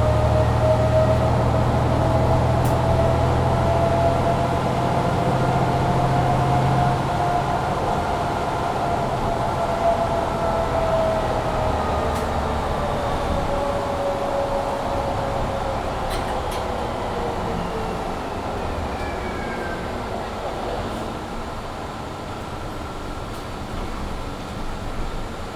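Mercedes-Benz Citaro C2 G articulated bus with Voith automatic transmission under way: the engine pulls hard for the first several seconds, then eases off. The bus runs on with a whine that rises slightly and then falls in pitch as it slows, and the overall noise gradually dies down.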